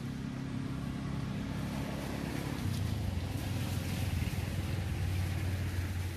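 An engine running steadily, its low hum dropping to a lower, stronger note about a third of the way in.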